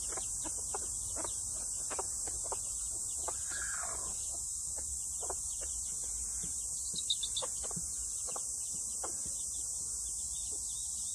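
Steady high-pitched drone of summer insects, with scattered soft ticks and short clucks from silkie chickens foraging on bare ground, and one slightly longer call about three and a half seconds in.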